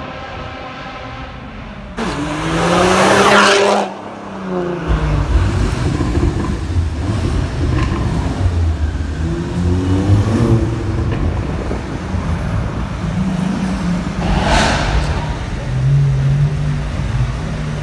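A car's exhaust rises and then falls in pitch as it accelerates past, about two seconds in. From about five seconds, car engines rumble low and steady as cars drive slowly through an enclosed multi-storey car park, with a short loud rev near fifteen seconds.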